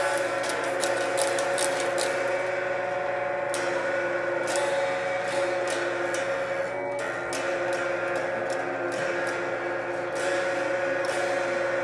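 Child-size electric guitar played through an amplifier: strummed notes ring on, with repeated pick strokes.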